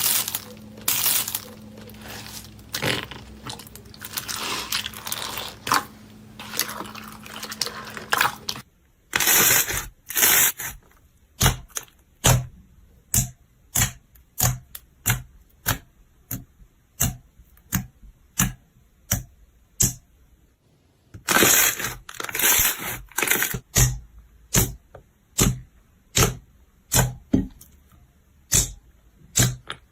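Slime being handled close to the microphone. At first it is a continuous crackling and crunching. After an abrupt change about a third of the way in, it turns into a steady series of sharp pops, about two a second, as air pockets in the slime are squeezed out. Two longer squishy stretches break up the pops.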